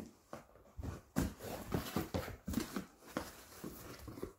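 Cardboard gift box being opened and handled: irregular soft knocks and rustles of the lid and inner packaging.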